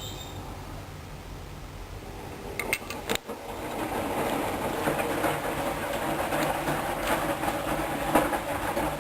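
Hoover Dynamic washing machine running with a low hum. A few sharp clicks come about two and a half seconds in, then a louder clattering noise of the drum turning with the load, which stops suddenly at the end.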